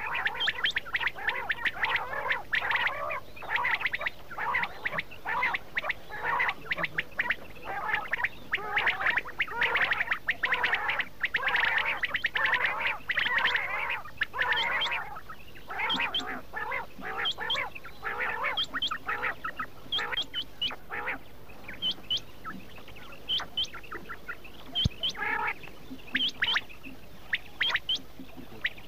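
Quail calling, many birds at once: a dense chatter of short overlapping calls that thins out about halfway through to scattered short, high calls with gaps between them.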